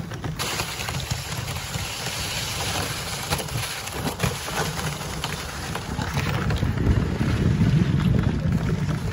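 Dog sled running over packed snow behind a husky team: a steady hiss of the runners on the snow, with wind rumbling on the microphone that grows stronger in the second half.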